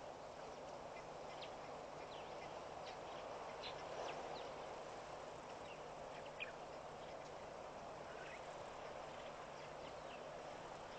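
Faint outdoor ambience: a steady hiss with scattered short, high bird chirps, and one sharp click about six seconds in.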